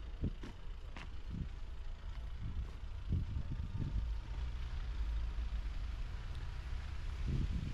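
Cars driving slowly past on a snowy city street, a low steady traffic rumble, with footsteps thudding about twice a second.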